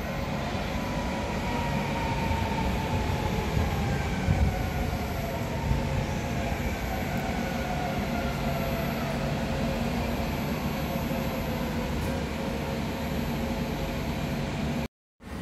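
Two coupled EN78A electric multiple units running on a passenger train, with rolling rumble and a few knocks from the wheels on the track. The electric traction drive's whine falls slowly in pitch as the train slows. The sound cuts off suddenly near the end.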